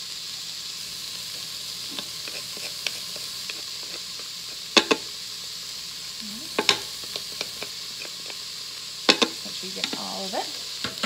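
Diced onion, carrot and celery sizzling steadily as they sauté in oil in an electric pressure cooker's inner pot. Three sharp knocks of kitchen utensils against the pot stand out, with smaller ticks between, and wooden-spoon stirring near the end.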